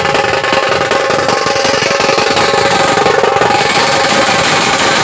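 Dhol tasha ensemble drumming: large dhol barrel drums and tasha kettle drums beaten with sticks in a fast, dense, continuous rhythm, loud throughout.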